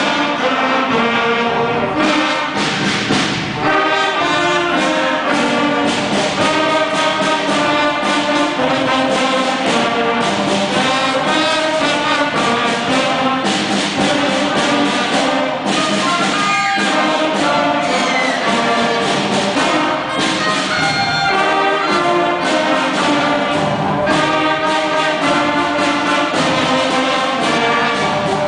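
Sixth-grade school concert band playing live, brass to the fore: trombones, baritone horns and trumpets sounding sustained notes.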